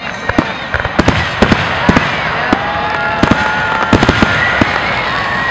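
Aerial fireworks display: frequent sharp bangs and pops over a continuous crackle, with long drawn-out whistling tones that glide slightly in pitch.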